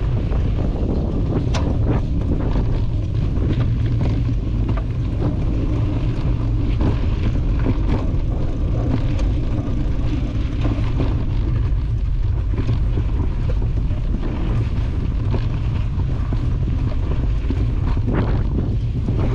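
Quad bike engine running steadily while riding a rutted dirt track, with wind buffeting the microphone and scattered short knocks from the bumps.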